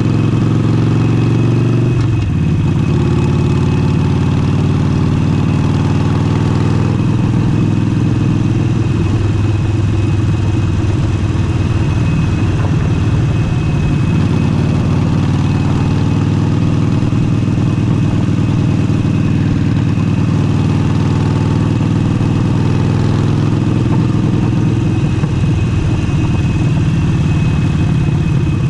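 Harley-Davidson Forty-Eight's 1200 cc air-cooled V-twin running steadily under way through an aftermarket exhaust, with wind noise on the microphone.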